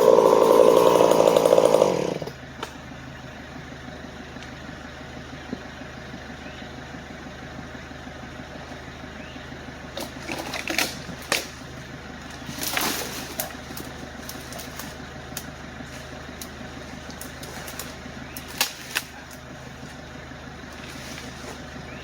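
A small engine running fast stops abruptly about two seconds in. A low, steady engine idle carries on after it, with a few short clanks and knocks.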